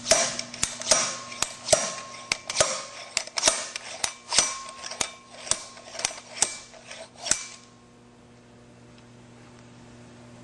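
Slide hammer on a factory three-jaw pilot bearing puller, slammed back again and again to drive the pilot bearing out of a rotary engine's eccentric shaft: sharp metal clacks about two a second. The blows stop about seven and a half seconds in, leaving a low steady hum.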